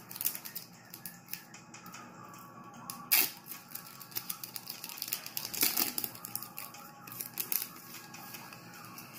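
Hands handling a Pokémon booster pack and its cards: crinkling foil wrapper and card-on-card clicks and slides, with a sharper rustle about three seconds in. Faint background music runs underneath.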